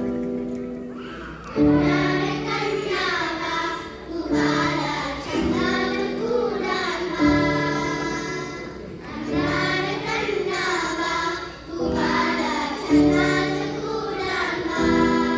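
A children's choir singing a song in phrases of a few seconds, accompanied by electronic keyboard chords. The keyboard sounds alone at first, and the voices come in about a second and a half in.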